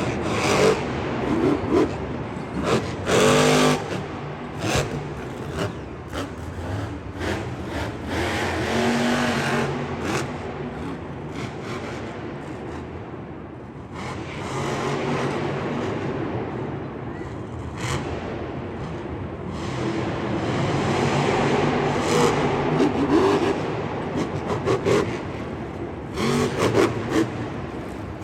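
Motor-vehicle engines running and revving, rising and falling in pitch, with a few sharp knocks or clanks.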